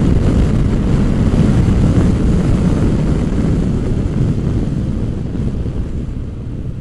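Wind rushing over a helmet-mounted microphone on a SYM MAXSYM TL 508 maxi-scooter pulling away at half throttle, with its 508 cc engine running underneath. The noise eases off over the last couple of seconds as the scooter slows.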